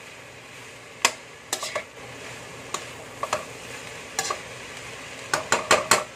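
A bean-sprout, cabbage and carrot filling sizzling in a wok as it is stir-fried, a utensil scraping and clacking against the pan every second or so, with a quick run of clacks near the end.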